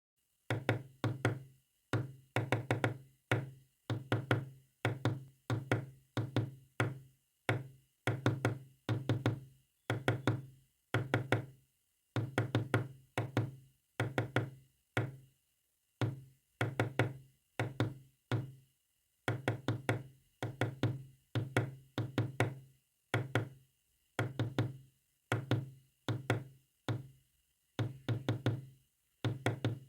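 Knocks tapped out as a code message in Morse code: clusters of two to six quick, sharp knocks, each dying away fast, with short silent gaps between the clusters, about one cluster a second.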